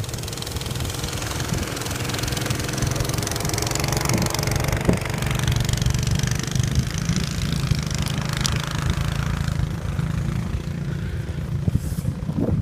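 An engine running steadily, its hum wavering slightly in pitch, with a hiss over it.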